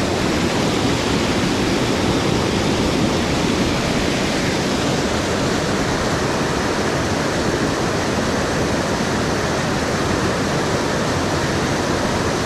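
Steady rush of a mountain stream's water running over rocks, an unbroken loud hiss and roar.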